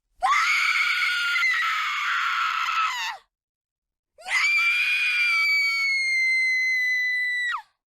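A woman screaming in terror: two long, high-pitched screams, the first about three seconds, the second about three and a half seconds and held on a steady pitch, each ending with a sharp downward break in the voice.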